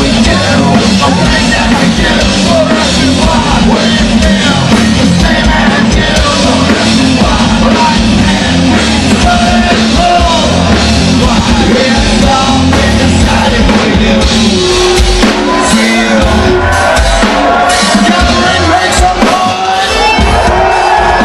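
Live rock band playing loudly, with bass and drums under a singer singing and yelling into the microphone, heard from out in the audience.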